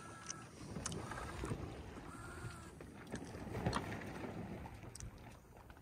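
Wind over the microphone and water rushing along the hull of a sailboat beating upwind in a sudden strong breeze, swelling and easing, with scattered clicks and a couple of short creaks from the boat.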